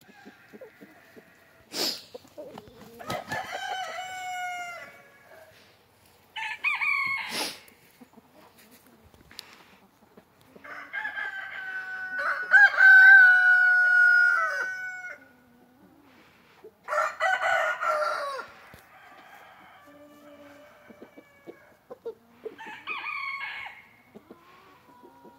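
A rooster crowing again and again, about five crows, the longest and loudest one near the middle. Two sharp knocks in the first eight seconds.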